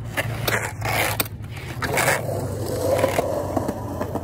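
Skateboard wheels rumbling on concrete, with the trucks scraping along the ramp's coping in a grind and a few sharp board clacks.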